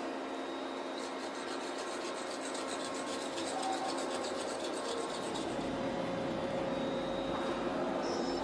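Rapid rasping, rubbing strokes of abrasive work on metal, from about a second in to about halfway through, over a steady hum of workshop machinery.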